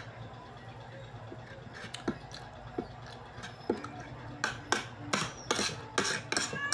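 Metal fork and spoon clinking and scraping against a ceramic dinner plate while rice is scooped up. A few separate clicks come first, then a quicker run of clinks in the second half, over a steady low hum.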